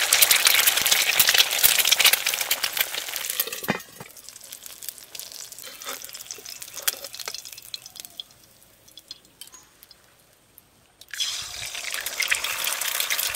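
Egg frying in hot mustard oil in a kadai: a dense crackling sizzle that drops away about four seconds in, leaving faint taps and scrapes of a metal spatula. Near the end a freshly cracked egg goes into the oil and the loud sizzle starts again suddenly.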